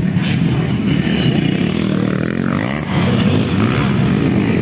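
Several motocross motorcycles racing on a dirt track, their engines revving up and down with overlapping, shifting pitches.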